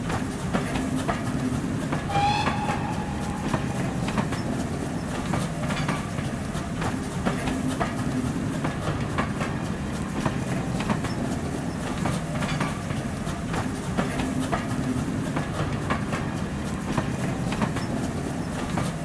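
Railway carriages rolling past, a steady rumble with the wheels clicking over the rail joints. A brief high tone sounds about two seconds in.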